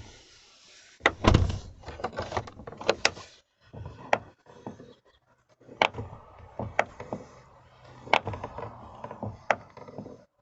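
Car door being swung open and shut, with repeated clicks and knocks from the door and its check strap, the loudest about a second in. The check strap is coated with laundry soap as a lubricant against creaking.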